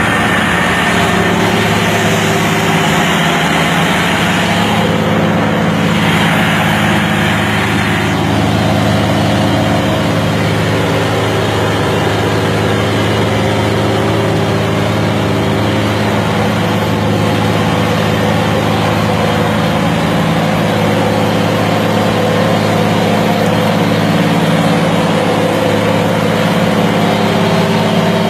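Diesel engine of a large New Holland four-wheel-drive tractor running steadily at constant speed, close by.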